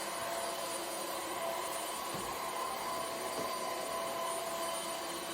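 Moolan V1 Pro cordless stick vacuum running steadily: a whine over a rush of air.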